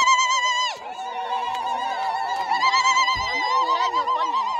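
Women ululating: high, fast-warbling trills held for a second or more, several voices overlapping. One trill breaks off just under a second in and another rises loudly about two and a half seconds in.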